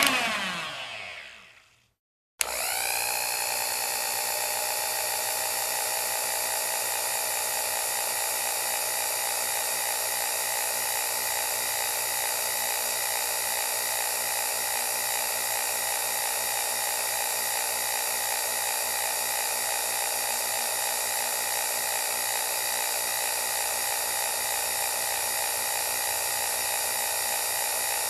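Electric stand mixer winding down to a stop, its whine falling in pitch, then after a short silence an electric hand mixer switched on at low speed, spinning up quickly and running steadily.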